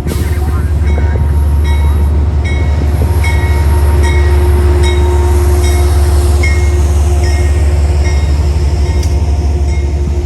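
A train running by, with a short high ring repeating about every three-quarters of a second and a steady heavy rumble of wind on the microphone.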